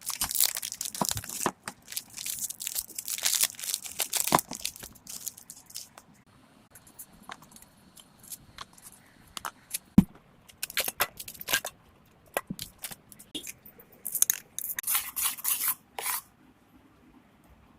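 Plastic packaging crinkling and tearing in irregular handfuls, with one sharp knock about ten seconds in.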